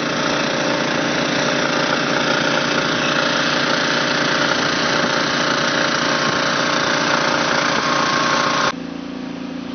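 Two portable engine-driven water pumps running steadily side by side, pumping water into a water-filled AquaDam flood barrier. The sound drops abruptly and becomes quieter near the end.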